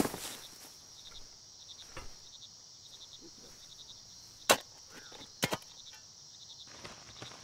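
Crickets chirping steadily, broken by a few sharp strikes of a spade into the ground. The loudest strike comes just past the middle, followed by a quick double strike.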